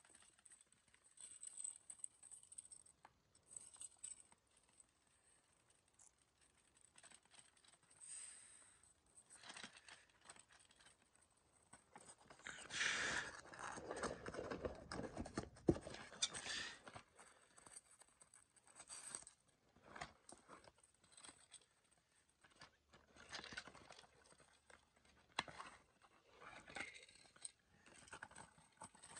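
Cardboard toy box being handled and opened by hand: scattered scraping, rustling and tearing of cardboard, loudest in a stretch about halfway through.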